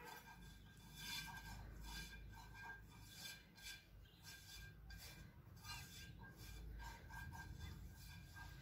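Silicone pastry brush spreading oil over a non-stick frying pan: faint, repeated rubbing strokes, a few each second.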